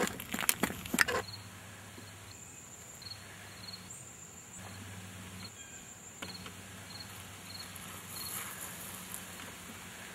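A quick run of clicks and knocks in the first second, then a quiet outdoor background in which insects chirp in short, evenly spaced high pulses over a low steady hum.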